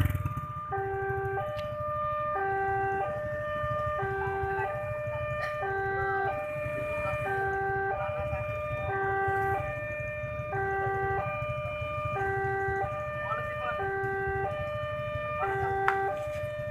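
Indonesian railway level-crossing warning alarm sounding, an electronic chime of stepped tones repeating a little over once a second. It signals that the barrier is down and a train is coming. Motorcycle engines idle low underneath.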